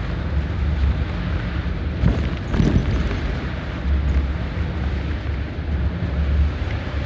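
Highway coach's diesel engine running with a low, steady hum under road noise, with a couple of brief thumps about two and a half seconds in.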